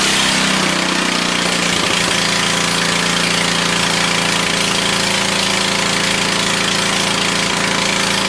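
Kohler K341 single-cylinder cast-iron engine running steadily with no muffler fitted, so the open exhaust is particularly loud.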